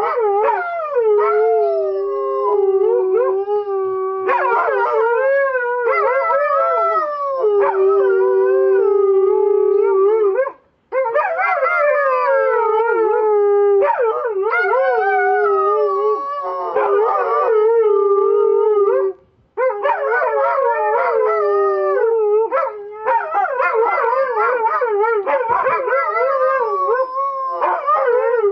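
Two Siberian huskies howling together in long drawn-out howls, one holding a steady low note while the other wavers up and down above it. The howling breaks off briefly twice.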